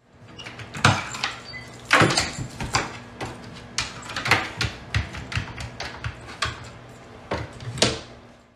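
Irregular wooden knocks and clicks as a dog climbs into an upright wooden feeding chair and its hinged tray is swung shut and latched, over a low steady hum.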